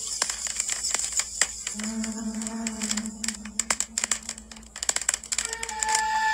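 Instrumental background music, with many sharp plucked or strummed attacks and a few held notes: acoustic guitar playing.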